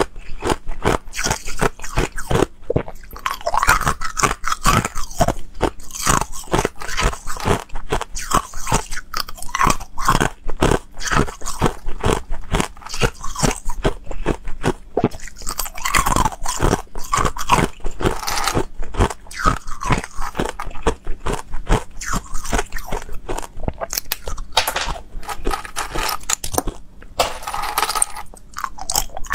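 Thin, hollow ice cubes being bitten and chewed close to a clip-on microphone: continuous crunching of brittle ice, several crunches a second.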